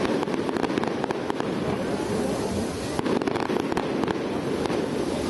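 Fireworks going off: aerial shells bursting into dense, rapid crackling and popping, in thicker flurries about half a second in and again around three seconds in.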